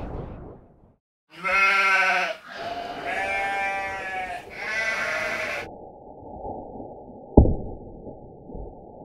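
Sheep bleating: three calls in a row, a short loud one, then a longer wavering one and a shorter one, stopping a little past halfway. Later a single sharp knock stands out over a muffled low background.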